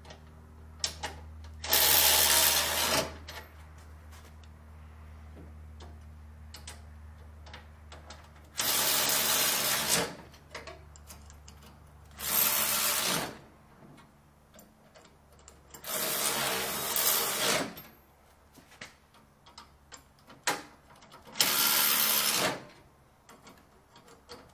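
Small cordless power tool running up bolts in short bursts of a second or so, five times, with a sixth starting near the end. Light clicks and taps of metal parts come between the bursts.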